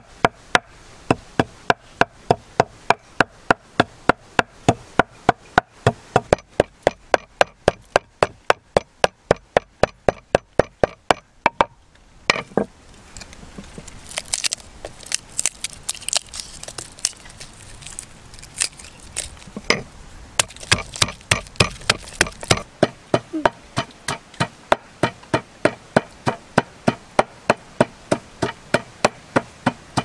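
Wooden pestle pounding dried spices and garlic in a mortar: a steady knocking of about three strokes a second. It turns fewer and uneven near the middle, then settles back into the steady beat.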